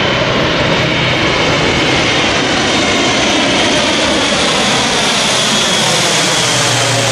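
Airbus A400M's four turboprop engines and eight-bladed propellers passing low overhead: a loud, steady drone whose tones slide slowly down in pitch as the aircraft goes over.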